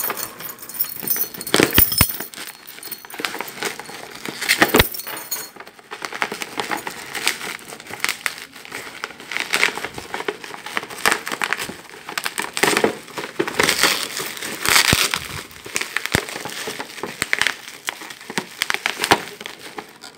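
Bubble wrap around a small cardboard box crinkling and crackling as hands pull and tear it open, in uneven spells of rustling with sharp crackles.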